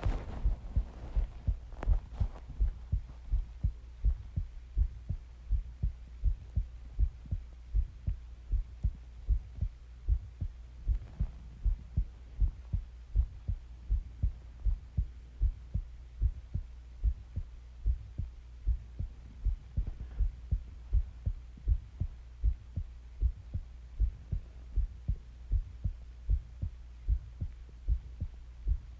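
A person's heartbeat, picked up close to the chest: a steady, regular train of low thumps over a constant low hum.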